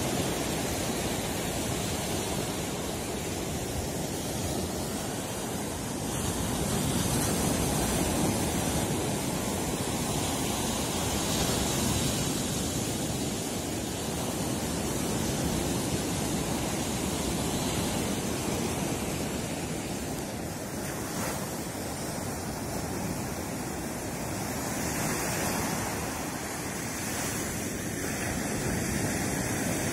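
Baltic Sea surf breaking on a sandy beach and washing up the shore: a steady rushing of water that swells and eases every few seconds as the waves come in.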